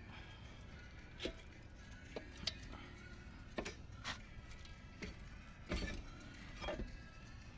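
Scattered short clicks and knocks, about eight over several seconds, from metal tools and brake parts being handled while working on a rear disc brake.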